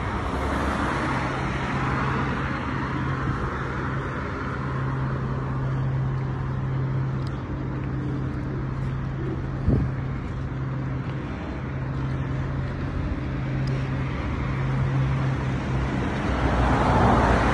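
Road traffic on a city street: a steady low hum under a rushing noise of passing cars that swells near the start and again near the end. A single short knock about ten seconds in.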